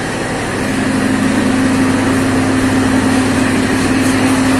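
Diesel generator of a standing passenger train's power car running steadily, a constant engine hum with a steady low tone, growing a little louder over the first second or so.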